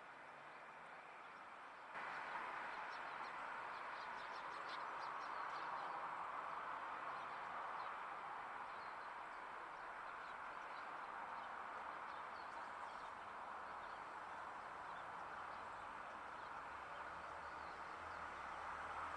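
Steady rush of river water, stepping up in loudness about two seconds in, with faint high bird chirps over it.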